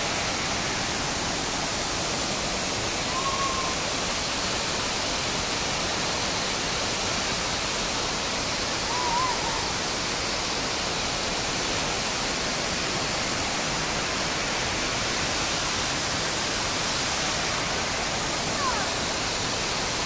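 Steady rushing of the Shaki waterfall and the river below it: an even, unbroken roar of falling water.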